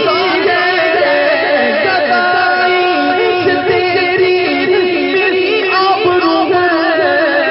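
Manqabat (Sufi devotional song) being performed: a wavering, ornamented melodic line with a voice, and a few long held notes.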